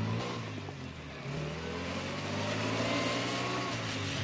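Off-road truck's engine revving as it drives, its pitch rising and falling several times.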